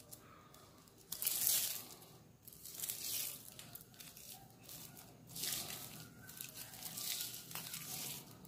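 Dry strips rustling and crinkling as hands twist them into a spinning-top whip cord, in about five short bursts, the loudest about a second in.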